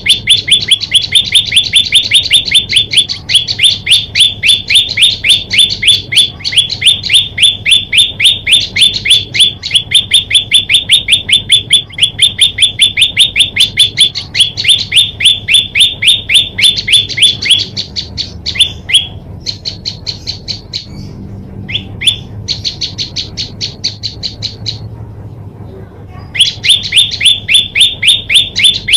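Prenjak lumut singing: a fast, even run of sharp repeated chirps, about six a second. About two-thirds of the way through it breaks into quieter, broken bursts with short pauses, and the loud run starts again near the end.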